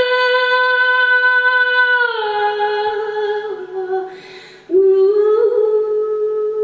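A woman singing unaccompanied, holding a long steady note that slides down to a lower pitch about two seconds in. She takes an audible breath about four seconds in, then starts a new held note that rises a little.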